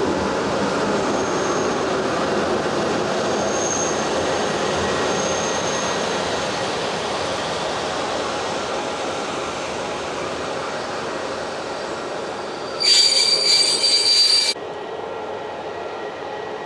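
A train rolling on the tracks, a steady rumble that slowly fades, with faint wheel squeals now and then. About 13 seconds in, a loud, high-pitched squeal lasts about a second and a half and stops abruptly.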